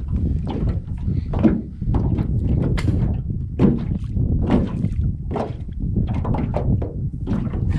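Small waves slapping and knocking against the side of a boat, roughly once a second, over a steady low rumble of wind on the microphone.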